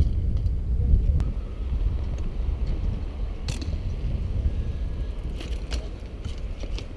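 Low wind rumble on the microphone while a bicycle rolls over paving bricks and up onto a granite ledge, with a few sharp knocks and clicks from the bike.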